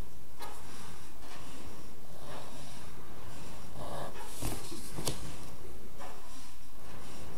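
Pen drawing a line along a plastic set square on paper, making short soft scratching strokes. Two sharp clicks come about four and a half and five seconds in as the set square is lifted and moved.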